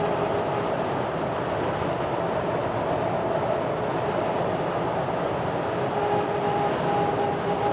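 Loud, steady wind rush inside the cab of a 2015 Toyota Tacoma at highway speed with all windows up, mixed with road noise. Faint steady tones come and go near the start and again about six seconds in. The wind noise is an unwanted fault with the windows closed.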